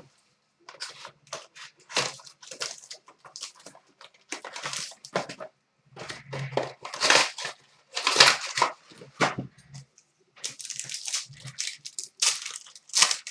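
Certified hockey card packs and box wrapping being ripped open: a run of short tearing and crinkling noises with pauses between.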